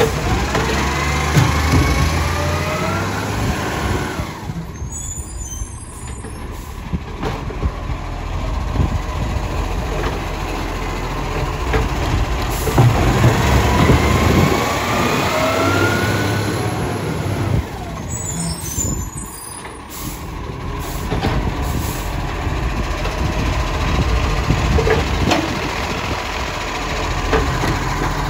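Side-loader garbage truck's diesel engine and hydraulic bin-lift arm working. The engine revs with a rising hydraulic whine as the arm lifts and tips a wheelie bin, then settles back. The cycle comes twice, with short hisses between.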